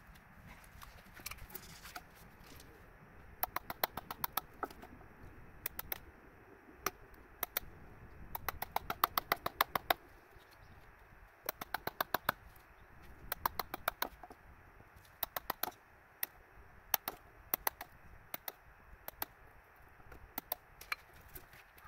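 Steel hammer tapping on a chisel in short runs of quick, sharp strikes, about five or six a second, with brief pauses between runs.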